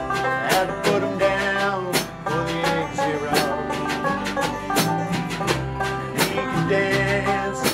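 Acoustic country-bluegrass band playing: strummed acoustic guitar, banjo and upright bass over a drum kit, with a steady beat of about three strokes every two seconds.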